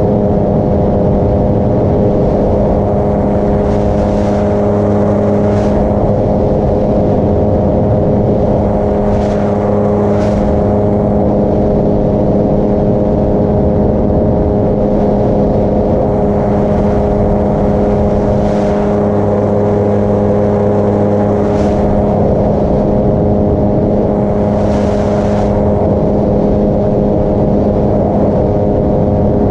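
Paramotor's two-stroke engine and propeller running at a steady cruise throttle, a constant, unchanging drone. Short hisses come and go several times over it.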